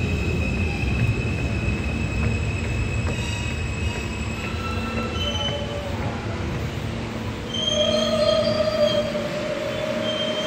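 New York City subway train pulling in along the platform, its rumble fading as it slows, with the steel wheels squealing: one long high squeal in the first half and several squeal tones together, the loudest part, about eight seconds in.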